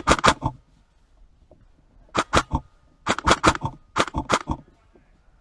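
Airsoft guns firing four short rapid bursts of sharp cracks, each of about four or five shots, the first at the very start and the others about two, three and four seconds in.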